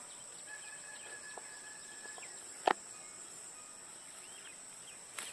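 Steady high-pitched insect drone with scattered short bird chirps and a held whistled bird note in the first couple of seconds. A sharp click about two and a half seconds in is the loudest sound, with a smaller click near the end.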